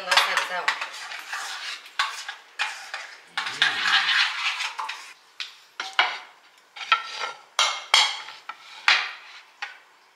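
A metal spoon clinking and scraping in a small stainless-steel saucepan, then a string of sharp clinks as a ceramic plate and a glass bowl are handled and set down on the counter.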